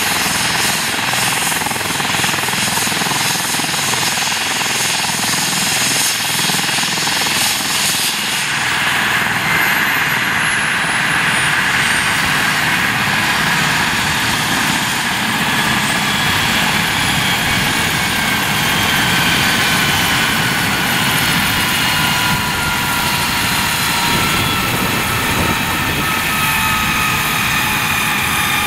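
Eurocopter EC135 P2 helicopter running on the ground with its twin turboshaft engines and rotor turning. About eight seconds in, a turbine whine comes in and its pitch falls slowly over the rest of the stretch.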